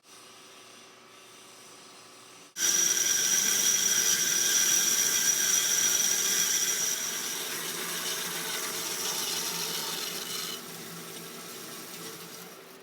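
MICROCUT SJ-13AT automatic band saw: a low machine hum, then about two and a half seconds in a loud, high-pitched sawing sound starts suddenly as the blade cuts. It steps down in level near the end and fades out.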